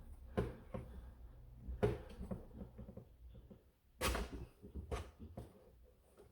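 Hard plastic parts of a blaster's adjustable stock clicking and knocking as it is loosened and slid; about five sharp clicks, the loudest about four seconds in.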